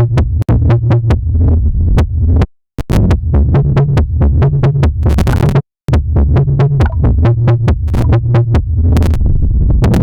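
Electronic dance music with a heavy bass line and fast, punchy beats, stopping dead for a split second a couple of times before kicking back in.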